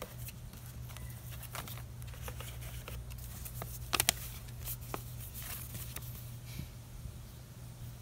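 Paper handling: sticker sheets and a folded instruction manual rustling and crinkling, with scattered light crackles and a sharper pair of crackles about four seconds in. A steady low hum runs underneath.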